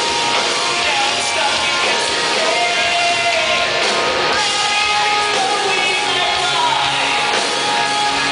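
A live band with a singer, played loud through a concert PA.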